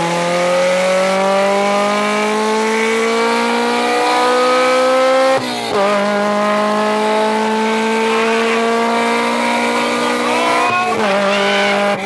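K20-swapped Honda Civic's four-cylinder engine at full throttle, its pitch climbing steadily through a gear, dropping sharply at an upshift about halfway through, then climbing again to a second upshift near the end.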